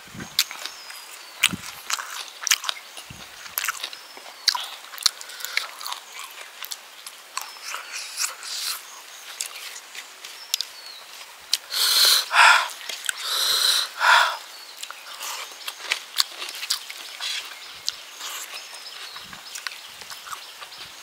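A person eating rice and pork curry by hand close to the microphone: wet chewing and lip-smacking clicks throughout. About halfway through there are two louder, longer noisy sounds, each lasting around half a second to a second.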